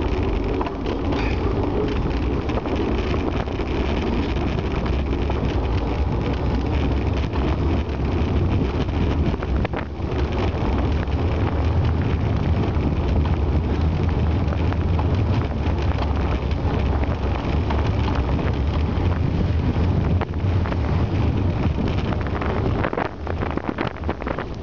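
Wind buffeting the microphone of a camera on a moving bicycle, a steady low rumble with road and tyre noise mixed in. It eases slightly and turns gustier near the end.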